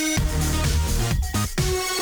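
Electronic dance music with a heavy bass beat and synth tones.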